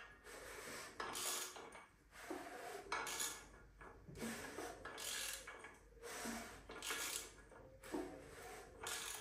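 Ratchet on the crankshaft bolt of a BMW S38B36 engine being turned over by hand: faint metallic clicks and clinks about once a second as the handle is swung.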